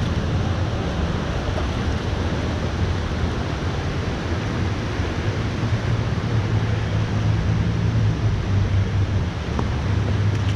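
Steady rushing of a mountain trout creek's water, with a low uneven rumble of wind buffeting the microphone.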